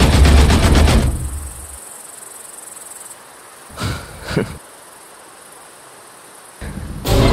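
A loud, rapid rattling burst with a heavy low end fades out over the first second or two. A faint hiss follows, broken by two short sounds about four seconds in, and a loud sound starts again near the end.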